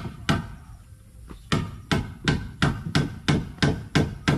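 A hammer striking the wooden formwork of a concrete post, bracing it with extra timber so the form holds when concrete is poured. It strikes twice, pauses, then keeps up a steady beat of about three blows a second from about a second and a half in.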